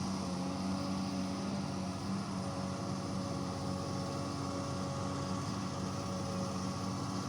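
XCMG hydraulic excavator's diesel engine running at a steady speed, a constant even drone with no change in pitch.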